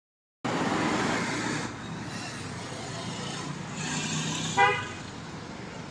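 Street traffic noise, louder for the first second or so, with a single short vehicle horn toot about four and a half seconds in.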